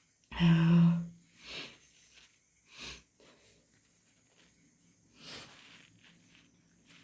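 Hay-fever sneezing and nose-blowing: one loud, voiced nasal blast about half a second in, then three short, quieter nasal breaths spread over the following seconds.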